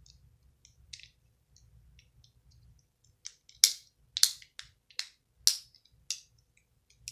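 Plastic fidget cube being clicked: a run of about seven sharp clicks roughly every half second, starting about three seconds in, after a few faint ticks.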